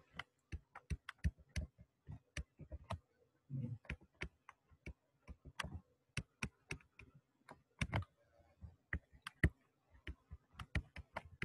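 Stylus tapping and clicking on a pen-input surface during handwriting: an irregular run of sharp little clicks, several a second, with short pauses between strokes.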